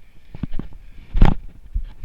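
Irregular close knocks and rustles of a player's movement and gear near the microphone, with one louder short burst about a second in.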